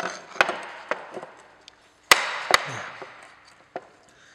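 About six sharp knocks at uneven spacing, the two loudest half a second apart about two seconds in: hammer blows driving the roll pin out of a Daewoo Lanos gearshift selector mechanism.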